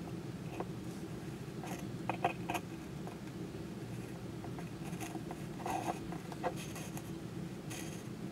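Light clicks and scrapes of hands handling a small coffee maker's coffee basket and tamper after tamping the grounds, in two brief clusters about two and six seconds in, over a steady low hum.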